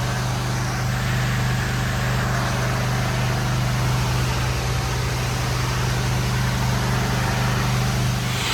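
Pressure washer's engine running at a steady pitch, with a hiss of spraying water over it.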